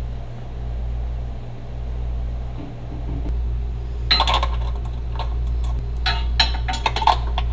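Sharp metallic clinks and scrapes of steel hitch mounting bolts being handled and threaded by hand into the vehicle's frame, in several short clusters from about four seconds in, over a steady low hum.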